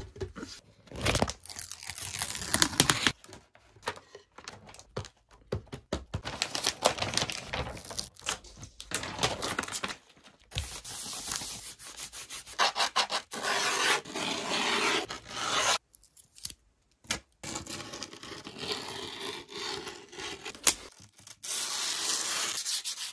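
Hands rubbing and pressing a sheet of Mob Grip griptape onto a skateboard deck. Scratchy rubbing strokes come in spells of a few seconds, with short pauses between them.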